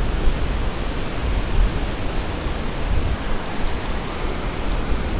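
Steady rushing noise of wind buffeting the camera microphone, with a gusty low rumble, over the wash of surf breaking on the beach.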